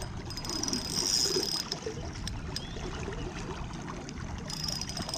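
River current rushing and splashing close to the microphone, which sits just above the water surface.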